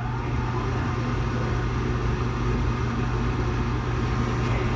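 Gas furnace fan motor running with a steady electrical hum.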